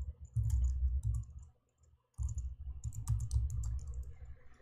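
Typing on a computer keyboard: scattered key clicks with dull thumps, stopping for a moment about a second and a half in before starting again.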